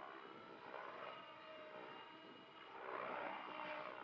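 Radio-controlled 3D helicopter flying overhead at a distance: a steady motor-and-rotor whine whose pitch bends up and down as it manoeuvres, growing louder about three seconds in.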